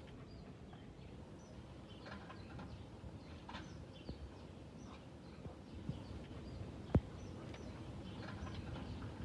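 Faint backyard ambience with scattered bird chirps and the rustle of grass as a dog rolls on its back. A single sharp click comes about seven seconds in.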